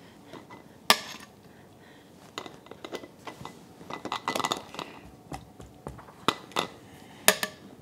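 Kitchen tongs, a plastic canning funnel and a glass mason jar knocking together as pieces of boiled chicken are dropped into the jar: a few sharp clinks, about a second in and twice near the end, with softer taps and knocks between.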